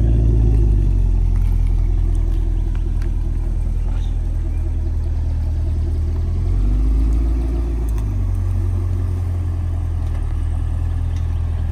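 2016 Cadillac CTS-V's supercharged 6.2-litre V8 running at low revs as the car rolls slowly. It has a deep exhaust rumble that swells with light throttle near the start and again about seven seconds in.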